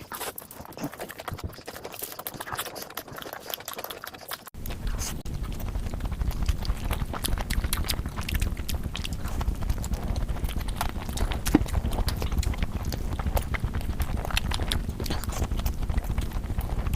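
Close-miked eating sounds: chewing with many quick wet mouth clicks. About four and a half seconds in, the sound cuts and a steady low hum runs under the chewing.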